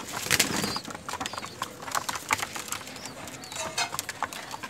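Domestic pigeons pecking at grain on a concrete floor: a rapid, irregular tapping of many beaks striking the hard ground.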